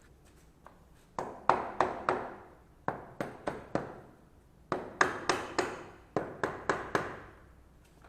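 Hammer tapping on a hard object, in four quick groups of four or five blows, each blow ringing briefly.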